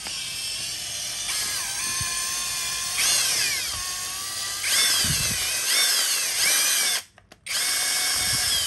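Cordless drill/driver motor whining as it cranks a 2-ton jack. The pitch sags under load, rises and falls in several short surges near the middle, and cuts out briefly about seven seconds in before running on steadily.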